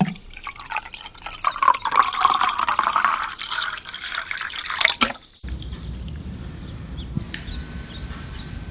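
Water splashing and trickling from a small fountain, dense and busy. About five seconds in the sound cuts to a quieter low hum with faint high chirps, and a steady thin tone joins near the end.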